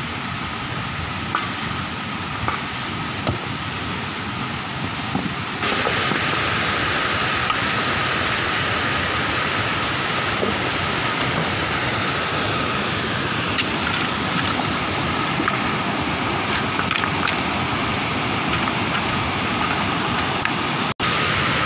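A river rushing over rocks: a steady wash of water noise that gets louder about six seconds in. A few light knocks come in the first seconds, and a faint steady whine runs underneath.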